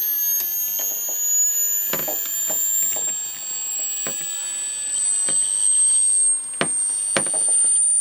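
An opened hard drive's voice coil read-arm actuator, driven by an amplifier as a makeshift speaker, plays a high-pitched test-tone sweep: a thin whine that rises slowly in pitch. Scattered faint ticks sound over it, with a sharper click about six and a half seconds in.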